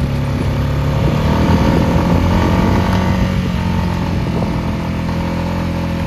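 Four-wheeler (ATV) engine running steadily at low speed, swelling slightly about a second and a half in.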